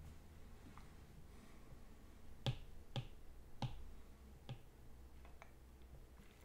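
Stylus tapping on a tablet's glass screen: about four sharp, faint taps in the middle, half a second to a second apart, with a few softer ticks around them.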